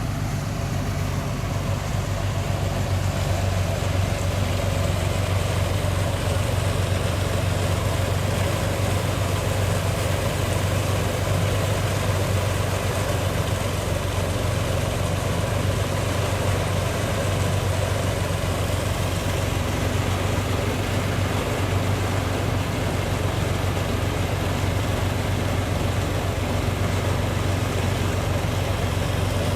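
Rice threshing machine running steadily with a steady low hum as rice stalks are fed into it by hand, separating the grain and throwing the straw back out into the field.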